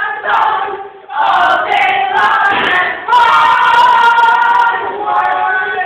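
A group of voices chanting loudly in unison, singing in three phrases with the last note held for about two and a half seconds.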